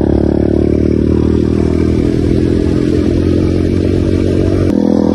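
A 125 cc dirt bike's engine running hard under way on a speed run, a loud continuous engine note whose character changes abruptly near the end.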